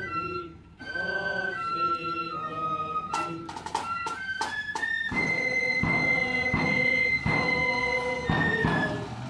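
Marching flute band playing a tune: the flutes carry the melody alone at first, then the side drums and bass drum come in about three seconds in and beat steadily under the held high notes.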